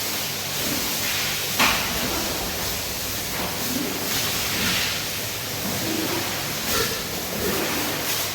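Steady hiss of a water sprayer washing down pig pens, with a short sharp knock about a second and a half in.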